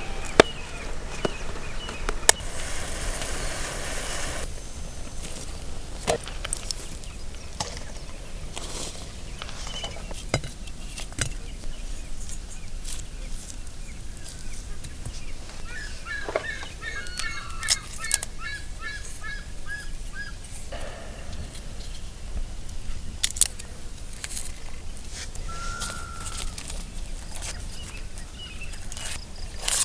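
Outdoor rural ambience with birds: a quick run of chirps about halfway through and a single short call near the end, over scattered light clicks and knocks.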